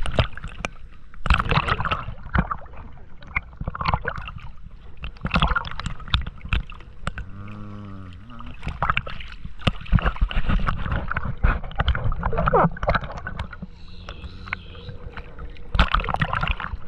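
Lake water splashing and sloshing against a small boat in irregular bursts, over a low rumble.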